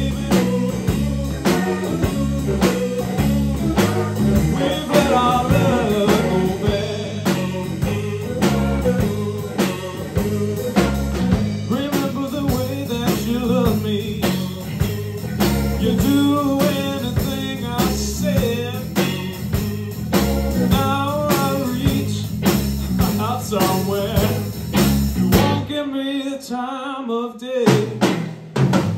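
A live blues-rock trio playing: electric guitar, bass guitar and drum kit, with lead vocals from the guitarist. Near the end the bass and drums drop out for about two seconds, leaving a bare guitar or vocal line, before the full band comes back in.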